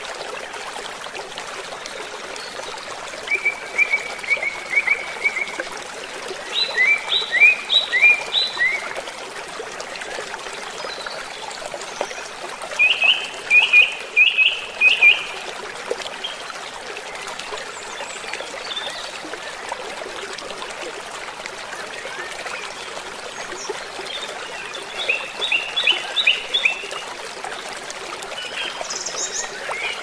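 Stream running with a steady rush of water, while birds sing several short phrases of quick repeated chirping notes, with pauses of a few seconds between them.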